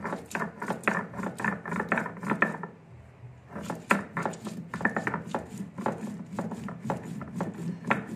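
Stone muller ground back and forth on a stone grinding slab (sil-nora), crushing green chillies into paste: a quick, rhythmic scraping of stone on stone, several strokes a second, with a short pause about two and a half seconds in.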